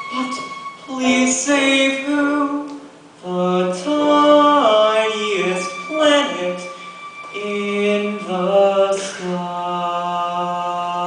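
Live musical-theatre singing on stage, with held notes that step up and down in pitch and a short break about three seconds in.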